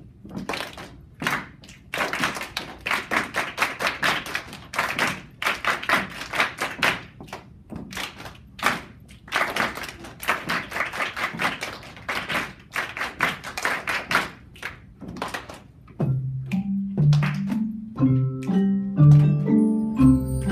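A group clapping and doing body percussion in a quick, repeating rhythm. About 16 s in, Orff bass xylophones and bass bars start playing a low, repeating pattern of notes.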